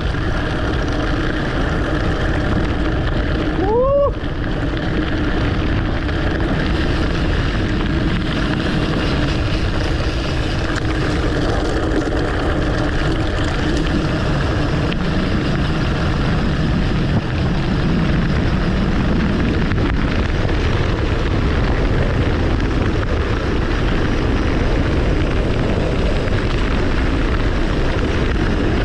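Wind rushing over a handlebar-mounted camera's microphone together with mountain-bike tyres rolling over a gravel forest road, a steady loud rumble. A short rising squeak about four seconds in.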